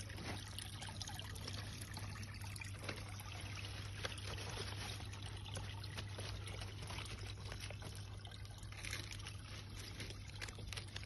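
Water trickling steadily into a pond, with a steady low hum underneath.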